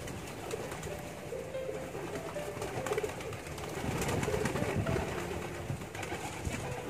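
Domestic pigeons cooing: short low coos repeating one after another, with a louder rustling stretch about four seconds in.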